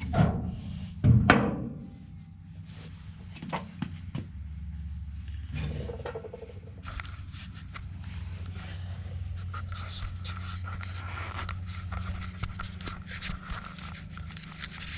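Two loud knocks about a second apart, then scattered small clicks and scrapes over a steady low hum.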